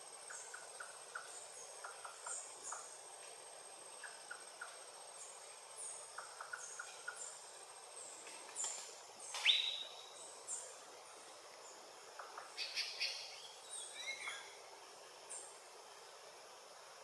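Green-backed trogon singing short runs of low, evenly spaced notes, among other rainforest birds calling. The loudest sound is another bird's single downward-sliding whistle about halfway through, and a steady high insect tone runs underneath.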